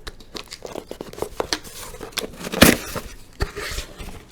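Paper and cardboard packaging being handled: rustling and crinkling with small clicks and knocks, and one louder rustle about two and a half seconds in.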